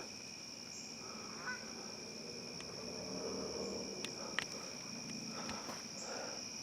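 Geese honking faintly, a few scattered calls.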